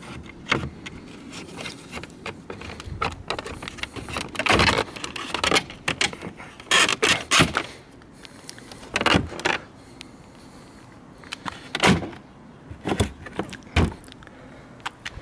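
Chrome trim strip and plastic lower grille of a VW Golf Mk5 front bumper being pushed back into place by hand: irregular clicks and knocks of plastic, in clusters.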